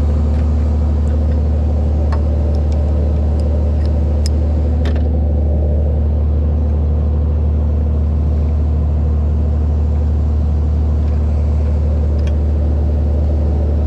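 Tow truck engine running steadily with a low, even drone, and a few faint clicks over it.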